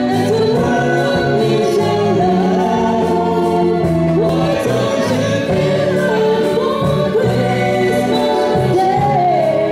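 Live band playing a song, with electric guitars and several voices singing together into microphones.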